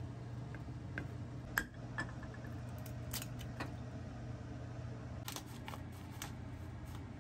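Kitchen stovetop sounds over a steady low hum: a wooden spatula stirring and knocking in a ceramic pot, with a few sharp taps, then a pepper mill clicking and grinding over an egg in a small frying pan, about five to six seconds in.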